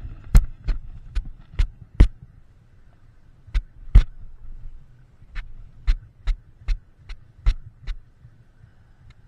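A string of sharp, dull knocks and thumps from hands and fishing tackle handled right against the camera. There is a cluster early on, a pair a couple of seconds later, then an even run of about two to three knocks a second that stops about a second before the end.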